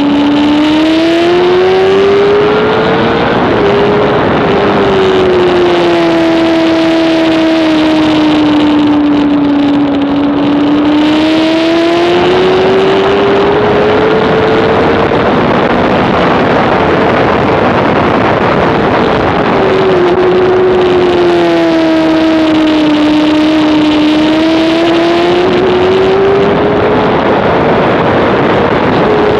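2007 Honda CBR600RR's inline-four engine running at racing revs, its note rising and falling slowly as the throttle is worked through corners, under heavy wind rush. Midway the wind noise all but drowns the engine note, before it falls and rises again.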